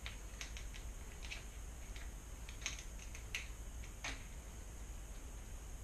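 Light, irregular clicks and ticks of hands working a new bicycle shifter and its cable into place, a dozen or so small taps, the sharpest about three and four seconds in.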